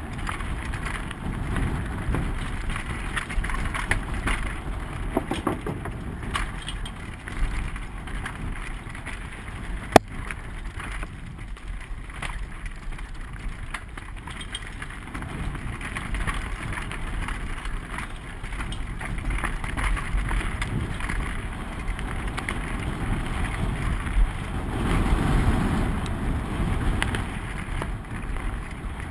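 Mountain bike descending a rocky dirt trail at speed: wind on the microphone, tyres rolling over dirt and loose stones, and the bike rattling, with a sharp click about ten seconds in.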